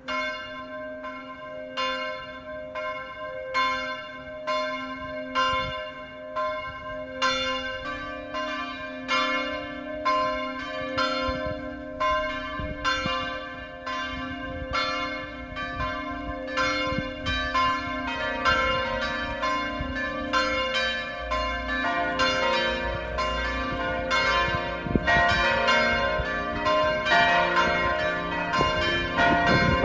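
Church bells ringing as a call to prayer: a steady succession of strikes on several bells, the strikes coming faster and overlapping more after about eight seconds, with the pitches shifting later on.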